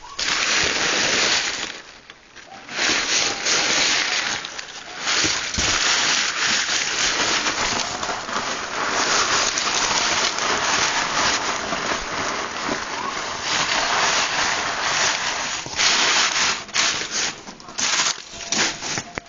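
Loud, steady rustling and rubbing right against the microphone, as when the recording phone is handled or covered. It drops away briefly about two seconds in and turns patchy near the end.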